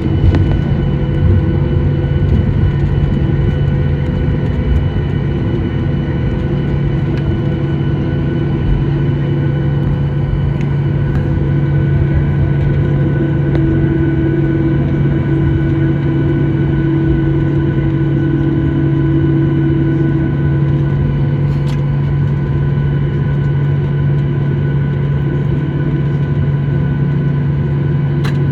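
Cabin noise of a Boeing 737-800 taxiing: a steady drone from its CFM56 jet engines at low thrust, with several steady tones over it, one of which fades out about two-thirds of the way through.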